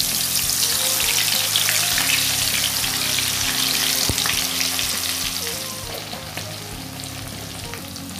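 Marinated chicken pieces frying in hot oil in a kadai, a dense crackling sizzle of bubbling oil as the pieces go in. The sizzle quietens about six seconds in.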